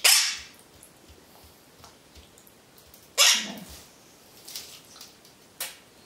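Quaker parrot bathing in a shallow tin lid of water: two short, loud, harsh bursts about three seconds apart.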